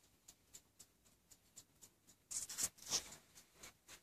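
Antique French mantel clock's movement ticking faintly and evenly, about four ticks a second. A short, louder rustling noise comes a little past halfway.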